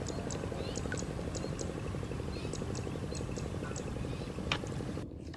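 Wetland ambience: a fast, even pulsing chorus of frogs over a steady low rumble, with short high chirps scattered through. It cuts off abruptly near the end.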